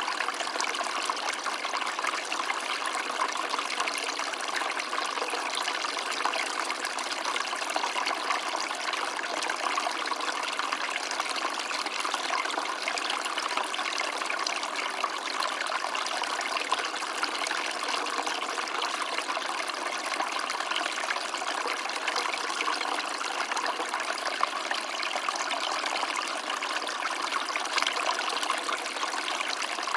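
Stream of water running steadily, an even, unbroken sound of flowing water.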